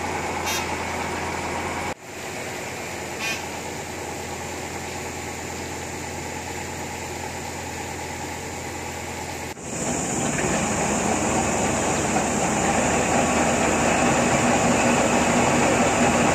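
Water from a hose spraying onto enclosure mesh, a steady hiss that becomes louder and fuller from about ten seconds in.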